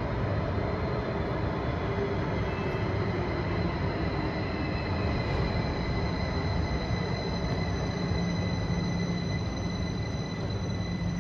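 Train approaching through a curved tunnel into an underground station: a steady low rumble with thin, high, steady wheel squeal above it.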